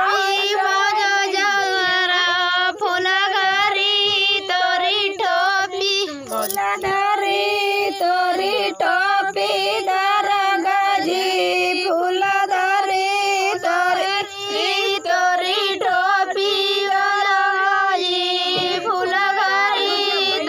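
A high-pitched female voice singing a chohkra, a North Indian village women's folk song, with a wavering, ornamented melody. One sharp click about six seconds in.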